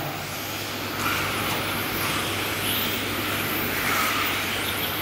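Radio-controlled touring cars racing round the track, their motors whining up and down in pitch as they accelerate and brake, over a steady wash of tyre and motor noise.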